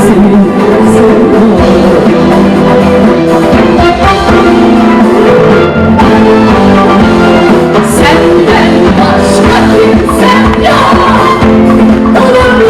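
Live Turkish pop concert music: a band playing with a sung vocal line, loud and continuous.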